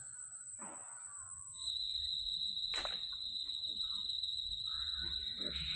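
Steady high-pitched insect shrilling; a second, lower-pitched steady shrill starts about a second and a half in, along with a low rumble.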